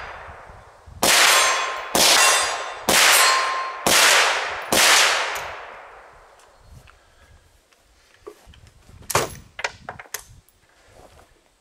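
Five rifle shots of .223 Remington ammunition from an AR-type rifle, about one a second, each with a metallic clang and a long ringing decay. A few light clicks of rifle handling follow near the end.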